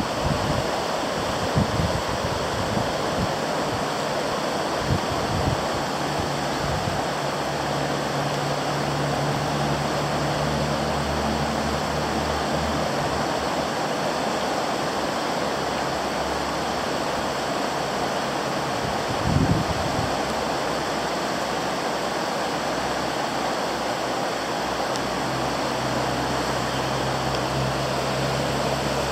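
Flooded river rushing past in a steady, even roar of fast water: the South Fork Eel River running high at minor flood stage.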